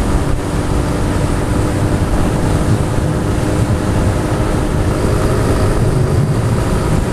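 A Honda Pop 110i's single-cylinder engine running at a steady cruise on the move, with a steady engine tone under heavy wind rush on the microphone.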